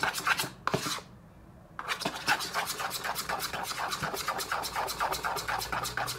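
Metal spoon stirring glue and slime activator fast in a plastic bowl, scraping against the bowl at about five strokes a second, with a short break about a second in.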